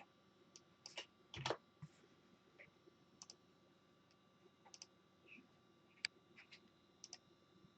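Faint, scattered clicks of a computer keyboard and mouse, with one louder soft knock about a second and a half in.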